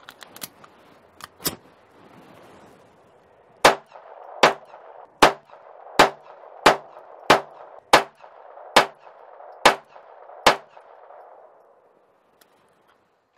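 Ruger SR22 .22 LR semi-automatic pistol firing a string of about ten sharp shots, a little under a second apart, after a few light clicks and a single shot at the start.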